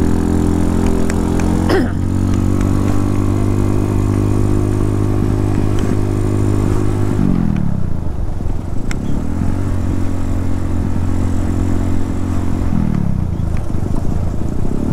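Motorcycle engine running under way, holding a steady pitch, then easing off and picking up again twice as the rider slows and accelerates.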